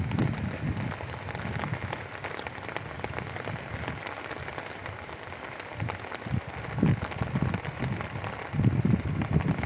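Rain falling onto floodwater, a dense crackling patter of drops. Low rumbling thumps come in at the start and again, louder, near the end.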